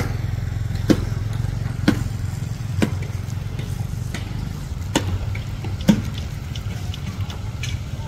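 A motor running steadily, with sharp knocks about once a second, like hammer blows on a building site.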